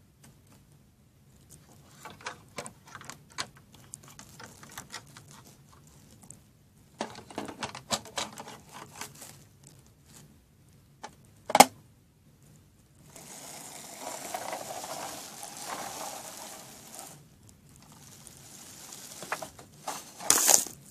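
Plastic toy figures and props being handled on a hard surface: runs of light clicks and taps, one sharp click about halfway through, then a few seconds of steady rustling and more clicks near the end.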